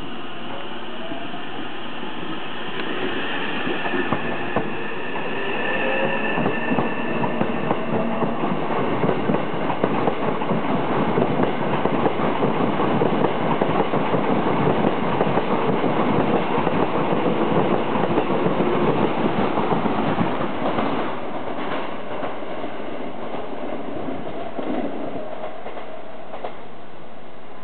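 Hankyu 9000 series eight-car electric train pulling away: the VVVF inverter drive's whine rises in pitch over the first several seconds. Wheels then clatter over the rail joints as the cars pass, loudest around the middle, and the sound fades after about twenty seconds as the train leaves.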